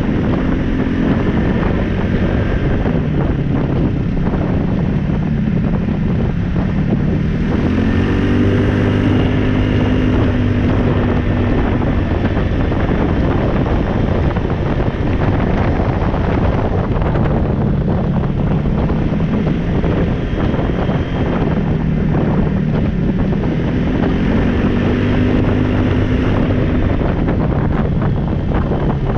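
2015 Polaris Ace 570 SP's single-cylinder engine running under way, rising in pitch as it accelerates about a third of the way in and again near the end. Steady tyre noise on the gravel road and wind on the microphone run underneath.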